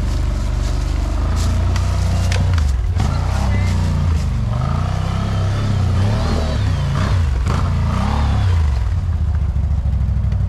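ATV engine working hard through deep mud, the throttle blipped so the engine pitch rises and falls several times in the middle.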